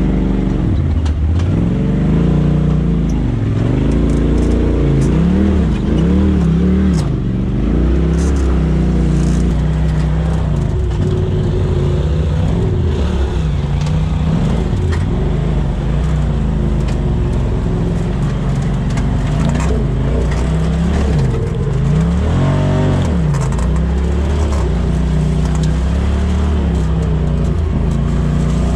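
Polaris RZR Turbo S side-by-side's engine revving up and falling back again and again as it is throttled over rock ledges in a slow crawl, with short knocks and rattles from the chassis.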